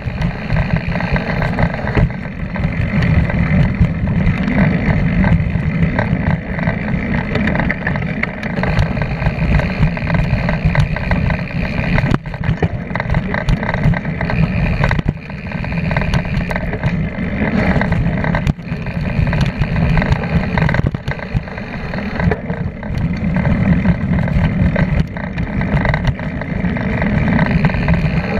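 Mountain bike running fast down a dirt singletrack: steady tyre and wind rumble on the bike-mounted microphone, broken by constant small clatters and knocks as the bike rattles over bumps and roots.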